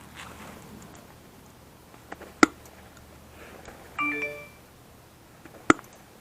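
Metal parts of a server rack being worked apart by hand: a light click, then two sharp loud knocks, one a little after two seconds in and one near the end, with a short metallic ring about four seconds in.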